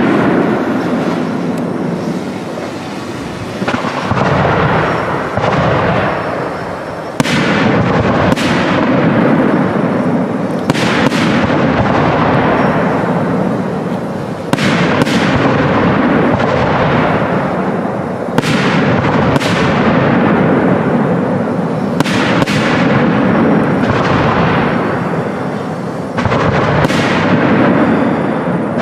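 Aerial firework shells bursting high overhead: about a dozen sharp bangs, one to four seconds apart, each followed by a long rolling echo over a continuous rumble.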